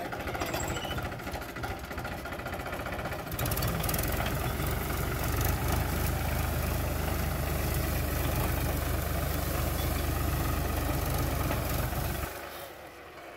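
Powertrac 439 tractor's three-cylinder diesel engine running steadily while pulling a cultivator, growing much louder a few seconds in and dropping off shortly before the end.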